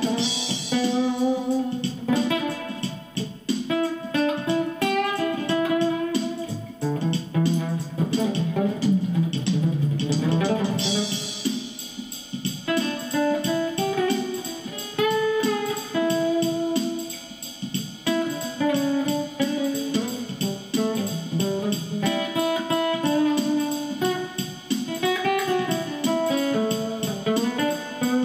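Acoustic guitar played through a Bonsai overdrive pedal into a 10-watt Cube-10 amp on its clean setting, picking a slow melody with held notes that bend in pitch.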